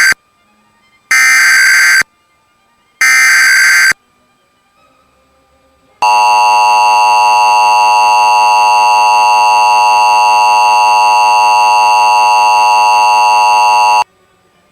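Emergency Alert System SAME header: the end of the first digital data burst, then two more one-second warbling data bursts about a second apart. After a two-second gap comes the EAS two-tone attention signal, a steady blaring tone held for about eight seconds. Together they signal the start of a Child Abduction Emergency (Amber Alert).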